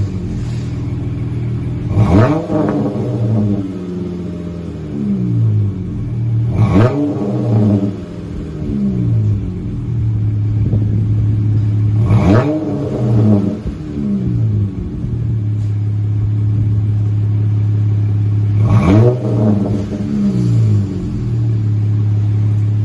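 2021 Dodge Challenger's 3.6-litre V6 exhaust, with the rear mufflers deleted and single chamber V-tube mid mufflers fitted, idling and revved four times, each rev rising in pitch and falling back to idle.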